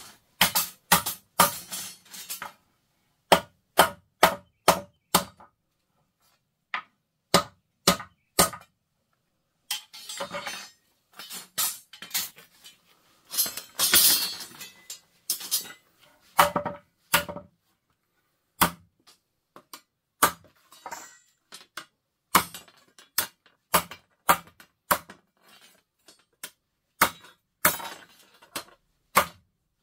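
A metal hand tool repeatedly striking earth and gravel, in irregular runs of sharp knocks about one or two a second, with a longer rasping scrape in the middle.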